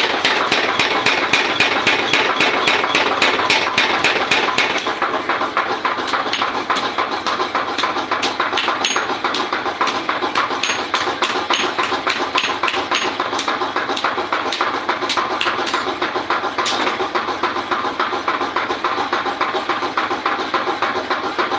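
Rapid, regular hammer blows on iron, about four to five strikes a second, over a steady background noise.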